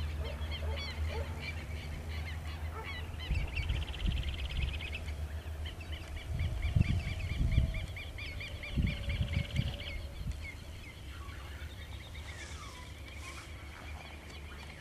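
Birds calling with short chirps repeated over and over, including rapid trills, over a low rumble of wind buffeting the microphone.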